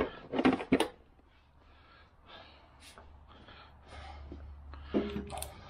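Metal fittings of a compression tester kit clicking and rattling against their hard plastic case for the first second, then quiet handling noise and breaths while the tester hose is fitted into the engine's spark plug hole.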